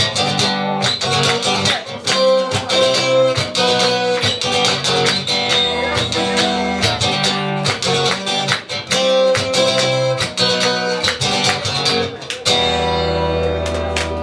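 Acoustic guitar strumming chords in a steady rhythm as the song's instrumental ending, with a final chord left to ring out about two seconds before the end.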